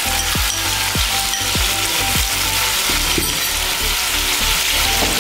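Chicken pieces and sliced onion sizzling steadily in hot oil in an aluminium pot, just after the raw chicken has gone in to brown, as ginger-garlic paste is added. Background music with a regular low beat plays underneath.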